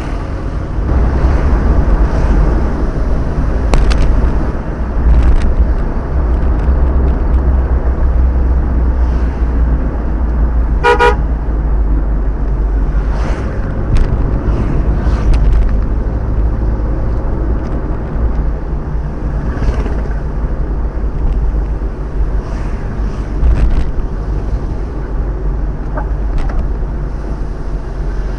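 Steady road and engine rumble of a car driving on a wet highway, heard from inside the car through a dashcam. About eleven seconds in a vehicle horn honks in a short, rapid burst.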